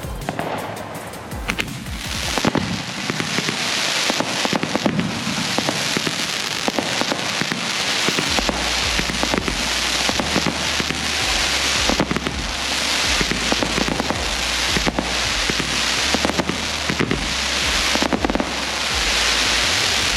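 Consumer fireworks cakes and shells firing in quick succession: a dense crackle packed with many sharp bangs, thickening about two seconds in.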